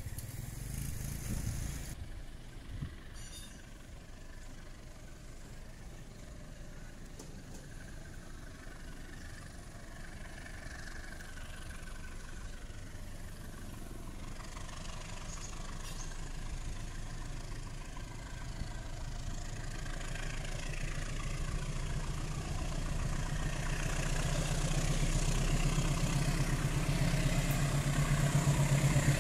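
Diesel locomotive hauling a container freight train, approaching; its engine drone grows steadily louder.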